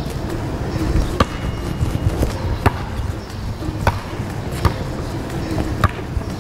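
A basketball bounced by hand on a paved schoolyard, about five single bounces roughly a second apart.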